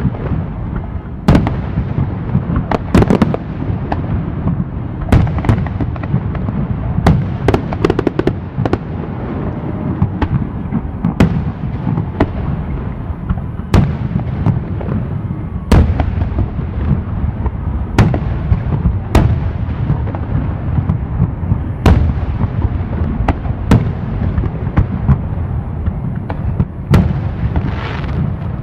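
Fireworks going off in a continuous barrage: a steady low rumble of booms with sharp cracks at irregular intervals, roughly one or two a second.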